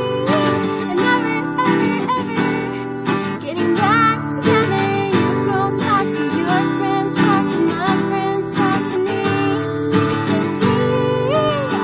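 Acoustic guitar strumming chords, with a woman singing a pop song over it.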